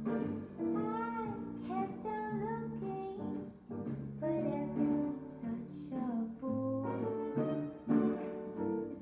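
Background music: an instrumental piece with a melody over sustained chords and a steady pulse, faintly brass-like in tone.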